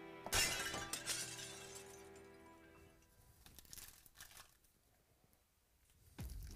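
Background music fades away, with a sharp crackle about a third of a second in. Near the end a foil trading-card pack wrapper crinkles loudly as it is handled.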